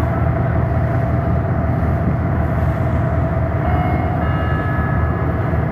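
Ferry's engines running with a steady low rumble, mixed with the rush of the churning propeller wake, heard from the open stern deck.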